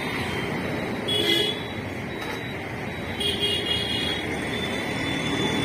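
Steady street traffic noise, with two short vehicle horn toots, one about a second in and a longer one a little after three seconds.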